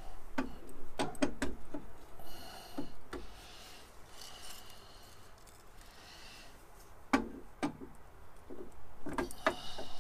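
Metal lathe parts clinking and knocking together as a gib and cross slide are handled and tried on an Atlas 10-inch lathe saddle, with brief metal-on-metal scraping between the knocks. The knocks come in a cluster at the start, singly around three and seven seconds in, and in another cluster near the end.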